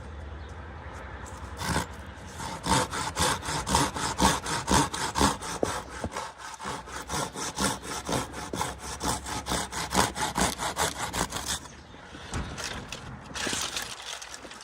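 Hand saw cutting dead aspen wood in quick, even back-and-forth strokes, about three or four a second, that stop about two seconds before the end; a short scraping noise follows near the end.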